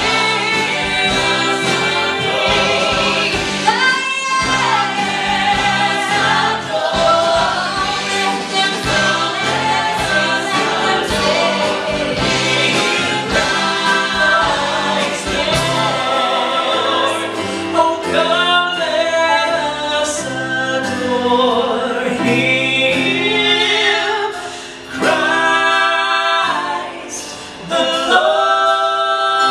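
A group of men and women singing in harmony into microphones with a live band of drums, electric guitar and piano. The drum beat drops out about halfway, leaving the voices over lighter backing with held chords.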